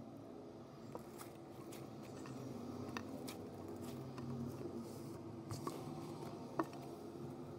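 Cloud slime being squished and poked by hand, giving faint, scattered crackles and soft clicks over a low room hum, with one sharper click near the end.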